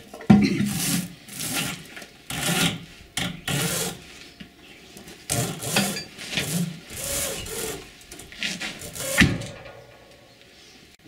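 A run of uneven, rough scraping strokes: a hand blade scraping old red rubber packing and rust off a cast-iron steam-pipe flange, with a sharp knock about nine seconds in.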